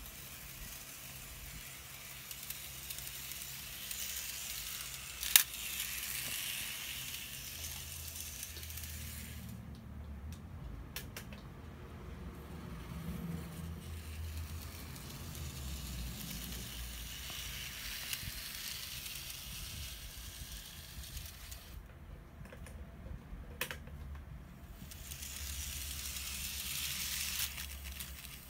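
Kato N gauge model train running around its plastic track, a steady whirring hiss that cuts out twice and comes back as it circles. A sharp click about five seconds in.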